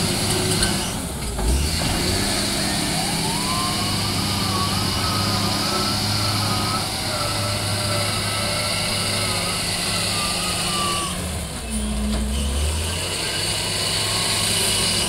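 Diesel wheel loader engine working under load as the machine scoops sand and carries it to a truck, revving harder about twelve seconds in as the loaded bucket is lifted. A wavering high tone runs through the middle.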